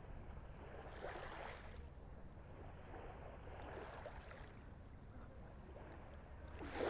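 Small waves lapping faintly on the beach, a soft wash rising and falling every few seconds on a calm sea.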